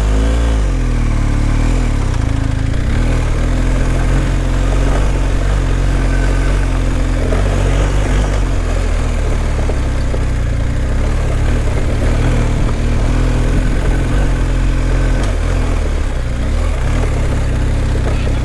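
Motorcycle engine running steadily at low revs, with no rise or fall in level.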